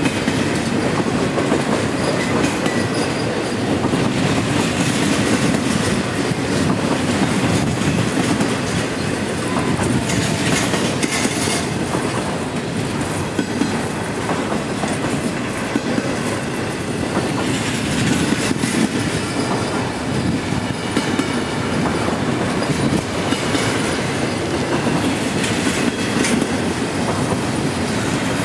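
Norfolk Southern double-stack intermodal freight train's container well cars rolling past, a steady rumble dotted with frequent clicks of the wheels over the rail joints.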